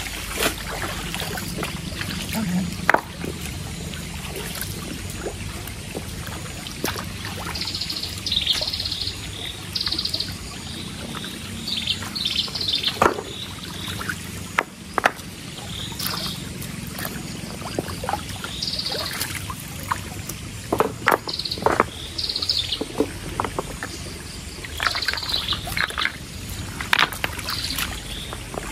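Forest stream flowing, with scattered splashes and knocks from work damming it for a bamboo fish trap. Birds chirp on and off throughout.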